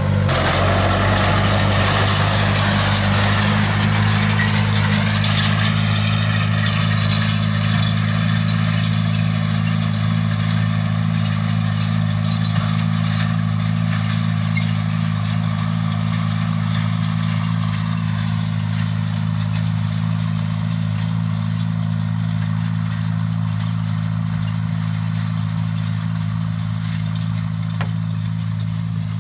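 Tractor engine running steadily at a constant working speed, pulling a mounted seed drill through tilled soil.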